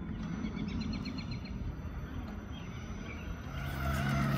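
Outdoor background noise with a low rumble, and a bird giving a quick run of repeated high chirps early on. Music comes in near the end.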